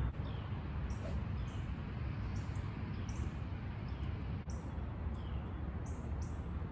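Open-air ambience: faint, high, short bird chirps every second or so over a steady low rumble.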